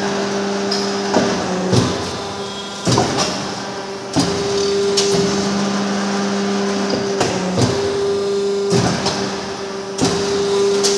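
High-speed double-die hydraulic paper-plate press running: a steady hum with repeated sharp knocks, roughly one a second, as its dies strike and cut the laminated plates.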